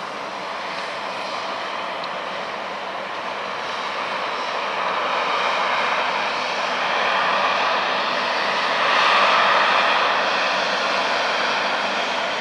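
Boeing 767 twin jet engines running at taxi power, a steady rush and whine that grows louder to a peak about nine seconds in as the aircraft passes close, then eases slightly.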